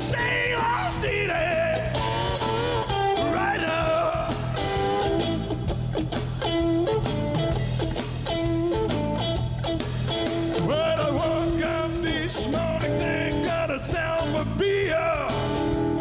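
Live rock band playing a song with a singer: electric guitar and drums under a sung melody, with a steady beat.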